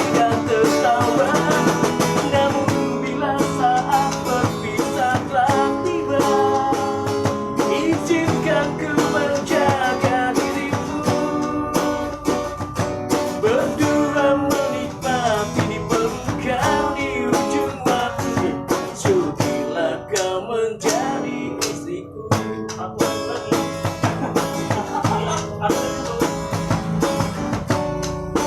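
Street busker singing a melody to a strummed acoustic guitar.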